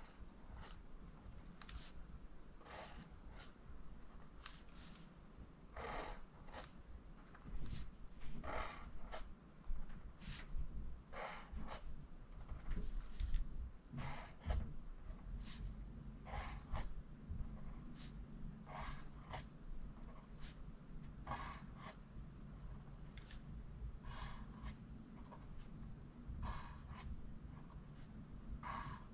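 Pencil lead scratching on paper, writing lowercase j's one after another. Short separate strokes come about once a second: the curved downstroke of each letter and the quick tick of its dot.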